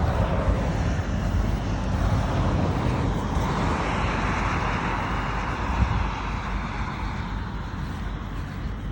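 Wind rumbling on the microphone, with the noise of a passing vehicle swelling up a few seconds in and fading away.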